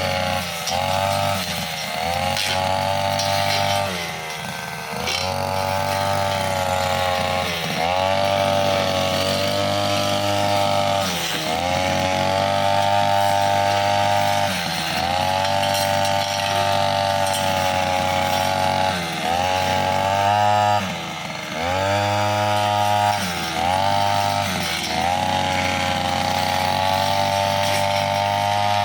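Brushcutter with a metal blade running at high revs, its engine note dipping again and again as the blade bites into tough grass and small woody stems, then rising back.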